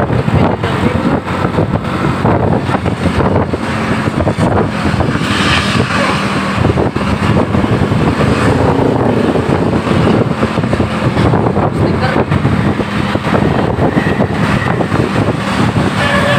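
A large bus engine running close by: a loud, steady rumbling rush with a low hum. At the very end a multi-tone telolet horn begins to play.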